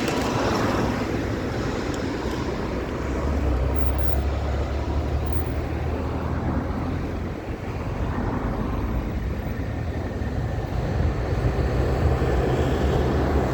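Airbus A320 jet engines: a steady rumble with a rushing hiss as the airliner rolls out along the runway after landing. The low rumble swells around the middle and again near the end.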